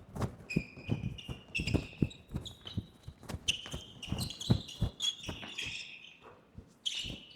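A basketball bouncing on a hardwood gym floor in irregular knocks, mixed with short high squeaks of sneakers on the court. The sounds thin out and go quieter about six seconds in.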